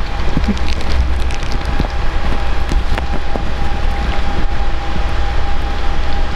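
Electric fan running close by, its air stream blowing across the microphone as a steady rushing rumble with a constant hum.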